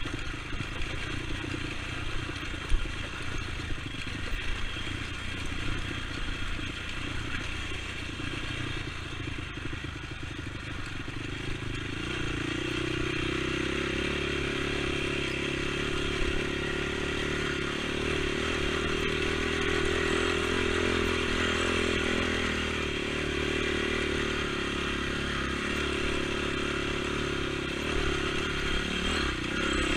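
Honda TRX450 ATV's single-cylinder four-stroke engine running while riding, with rattling and knocks over the first dozen seconds. After that it settles into a steadier, slightly louder engine note.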